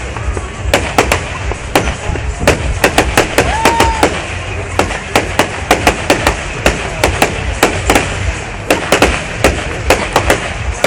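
Fireworks going off: many sharp bangs and crackles in quick, irregular succession over a steady low rumble.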